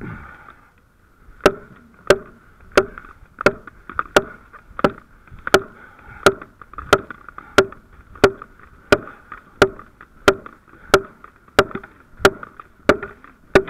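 A long-handled striking tool hitting a wooden timber over and over at a steady pace, about three blows every two seconds. Each blow is a sharp knock with a short ring.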